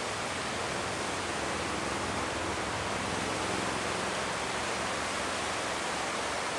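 Mountain stream rushing over rocks in white water, a steady, even roar.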